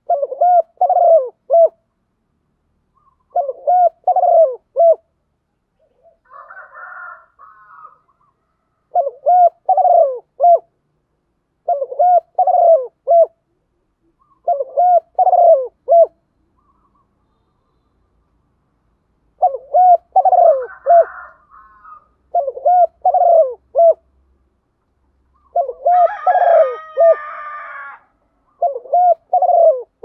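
Spotted dove cooing: about nine short phrases of three or four coos each, repeated every few seconds. A few times a rougher, scratchier sound joins in between or over the phrases.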